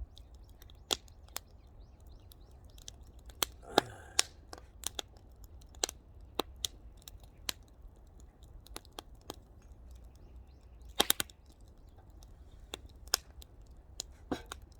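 Firewood fire crackling, with irregular sharp pops and snaps, a quick cluster of them about eleven seconds in.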